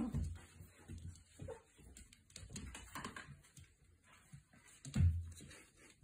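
Five-week-old F1 goldendoodle puppies moving about on a blanket, making small puppy noises, with two dull thumps, one at the start and one about five seconds in.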